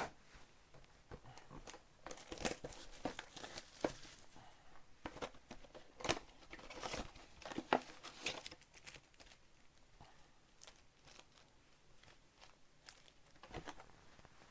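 Plastic trading-card pack wrappers being torn open and crinkled by hand, in crackling bursts about two to four seconds in and again from about six to nine seconds, sparser after that.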